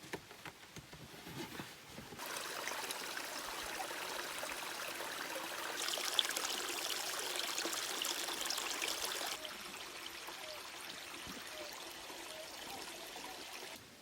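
Water running and splashing: a steady hiss that starts about two seconds in, is loudest in the middle, drops back and stops suddenly near the end.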